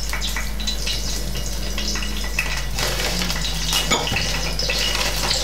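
A hot frying pan on a gas stove sizzles faintly and steadily under a low hum, while hands rustle a paper salt pack and tap about as salt is sprinkled over raw pink salmon pieces, with a few sharper taps about three and four seconds in.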